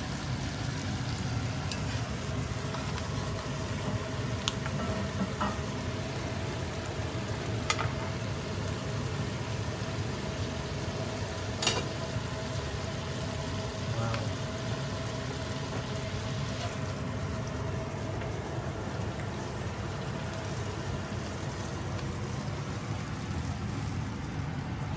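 Butter, caper and lemon sauce bubbling and sizzling in a cast-iron skillet, a steady frying hiss with a few sharp clicks of crockery or utensils. The hiss thins out about two thirds of the way through.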